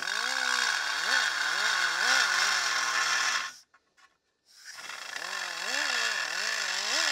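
Small rotary tool with a carbide burr grinding the inside radius of a thin 22-gauge steel brake backing plate, its pitch wavering up and down as the burr bites. It stops about three and a half seconds in and starts again about a second later.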